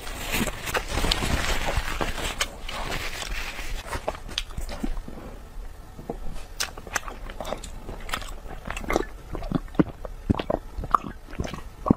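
Close-miked eating sounds: for the first few seconds a wet, squelching noise as gloved hands pull food apart, then chewing with scattered sharp clicks and lip smacks. The smacks grow denser near the end, with sips and swallows as she drinks from a glass.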